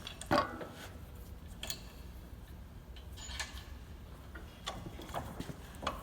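Hydraulic cylinder barrel and tools being handled and clamped in a bench vise: scattered metallic clicks and knocks, the loudest about half a second in, over a low steady hum.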